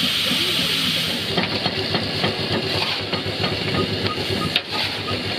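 Steady hiss of steam from a portable steam engine, ending about a second in. Then an old stationary engine with a large flywheel runs with an even beat of about three strokes a second and a light repeating click.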